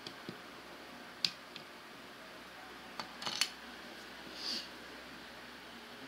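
Small sharp clicks and taps of plastic Lego pieces being handled, with one click about a second in and a quick cluster of several about three seconds in, followed by a brief soft rustle, over a steady background hiss.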